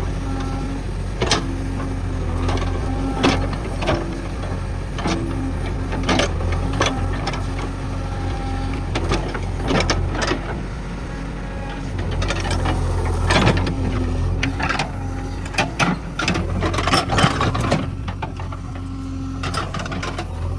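JCB 3DX backhoe loader's diesel engine running steadily under load, with irregular metallic clanks and knocks from the working machine that come thicker near the end.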